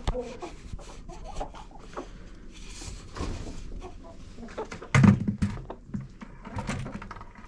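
Domestic chickens clucking softly among rustling and clicking, with a loud low thump about five seconds in.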